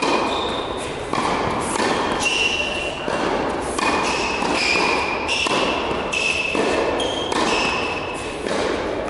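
Tennis balls struck by a racket during a rally, a sharp hit every second or so ringing on in a large reverberant indoor tennis hall, with short high squeaks of shoes on the hard court.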